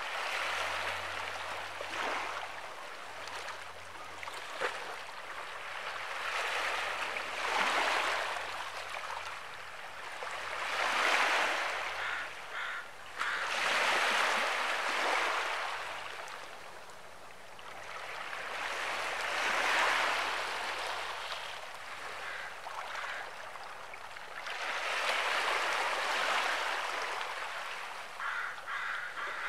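Small sea waves washing onto the shore, the rush of water swelling and fading every few seconds.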